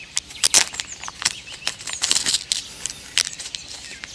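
Small metal fishing hooks clicking and rattling as they are picked through in a tackle box, in irregular bursts of light clicks.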